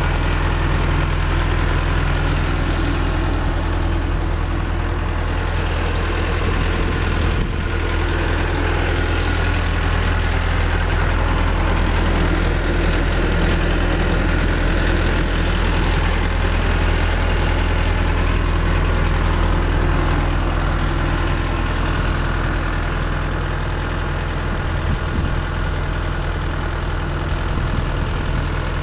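John Deere 310G backhoe's diesel engine idling steadily, with one short click about seven and a half seconds in.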